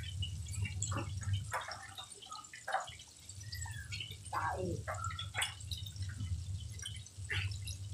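Chicken pieces deep-frying in a wok of hot oil, the oil sizzling with many small crackling pops, over a low steady hum.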